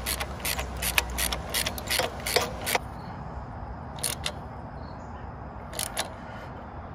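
Socket ratchet clicking in quick short strokes as a frame bracket bolt is tightened down, with a wrench holding the nut. The clicks come in a fast run for the first three seconds, then twice more on their own.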